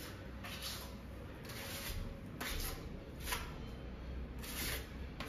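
Putty knife scraping filler into holes in a plaster wall: a series of short scraping strokes.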